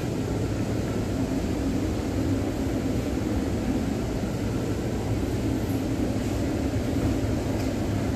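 Steady low hum inside a Delhi Metro car standing at the platform with its doors shut: the car's air-conditioning and on-board electrical equipment running.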